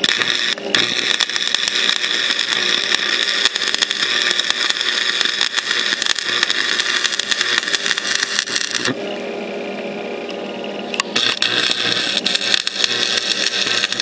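Stick welder arc crackling and sizzling as a bead is run over cracks in a racing mower's front axle and frame. It stops for about two seconds partway through, then strikes up and crackles again near the end, over a steady hum.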